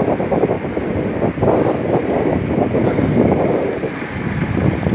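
The flood-swollen Swat River rushing past in a loud, steady wash of noise, mixed with wind buffeting the phone's microphone.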